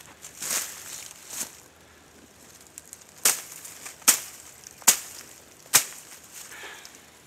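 Brush being cut by hand with a cutting tool: rustling of branches, then four sharp cutting strikes a little under a second apart.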